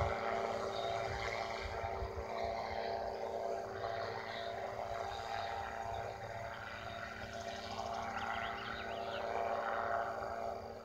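Engine of a small aircraft in flight, heard from the ground as a steady, even drone.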